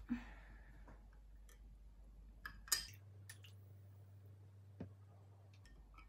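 A few light clicks and clinks of a straw against a drinking glass as the drink is stirred, the loudest cluster about two and a half to three seconds in.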